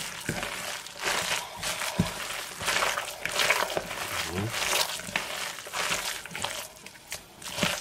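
A hand squeezing and turning grated raw potato batter (potato with egg and flour) in a plastic bowl, an irregular run of scrunching strokes.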